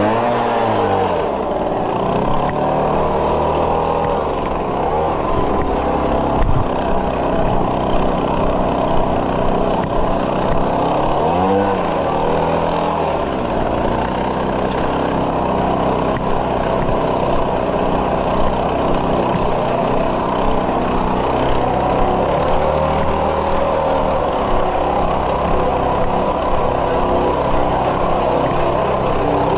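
Small gasoline engine of lawn-care equipment running steadily, its pitch rising and falling briefly twice: right at the start and again about twelve seconds in.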